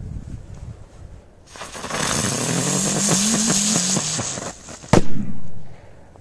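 Small ground firework fountain (a 'rose') hissing loudly as it sprays sparks for about three seconds, with a wavering low tone in the hiss, then a single sharp bang about five seconds in.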